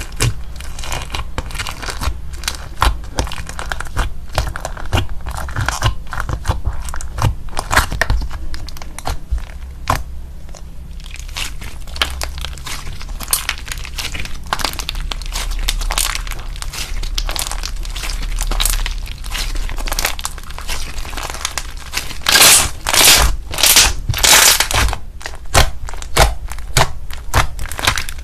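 Fluffy blue slime mixed with foam beads being poked, squeezed and stretched by hand: a steady run of sticky clicks and crackles, with a few louder bursts of crackling in the last few seconds.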